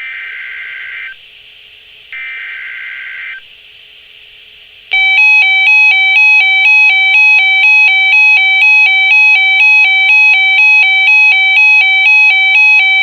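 Emergency Alert System signal: two one-second bursts of screeching digital data tones (the SAME header), a second apart, then about five seconds in a loud electronic attention tone starts, warbling quickly between two pitches. It announces an emergency alert, here a severe thunderstorm watch.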